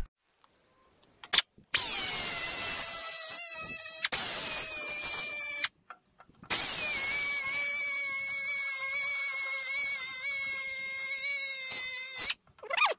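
Small air-powered rotary grinder whining as it cleans corroded battery terminals: two runs, one of about four seconds and then, after a short pause, one of about six seconds. Its pitch drops at the start of each run as it bites into the metal.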